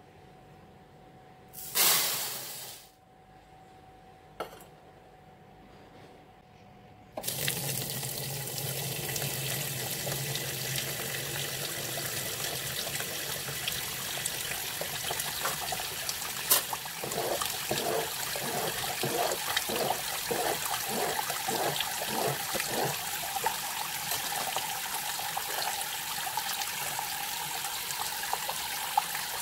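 Uncooked sticky rice poured from a small metal cup into a plastic tub in a stainless steel sink, a short rush of grains about two seconds in. Then, from about seven seconds in, tap water runs steadily into the tub onto the rice to rinse it, with a quick pulsing in the water sound for several seconds midway.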